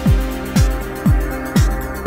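Background music with a steady kick-drum beat, about two beats a second, over held chords.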